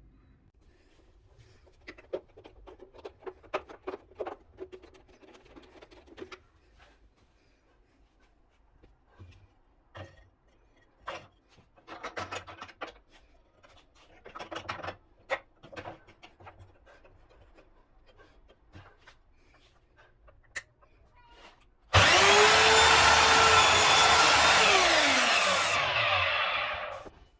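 Parkside miter saw's electric motor switched on with a sudden start and running at full speed for about three seconds with a loud whine, then switched off and winding down, the whine falling in pitch until it stops. Before it come scattered quiet clicks and rubbing as the saw's parts are handled.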